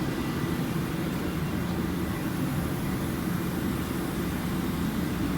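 Steady low drone of running machinery, even and unbroken, with no separate knocks or clicks.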